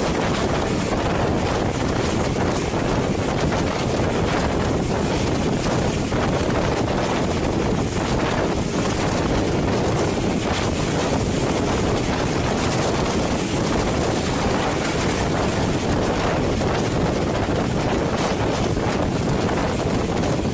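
Steady rush of wind on the microphone over the running noise of a moving passenger train, its coaches rolling along the track.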